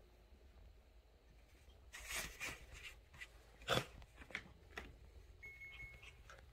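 Two small dogs wrestling on a bed: a run of short rustles and scuffs of paws and bodies on the bedding begins about two seconds in, the loudest a little before the middle. A brief thin high tone sounds near the end.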